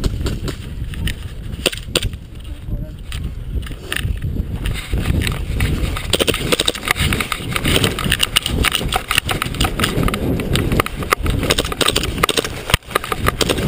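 Heavy rustling and scraping on a body-worn camera's microphone from clothing, gear and long grass as the player moves on foot, with scattered knocks and thumps.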